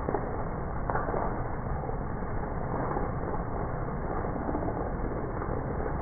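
Heavy monsoon rain pouring steadily on a wooden deck and garden foliage, with wind gusting against the microphone. There is one short sharper gust or patter about a second in.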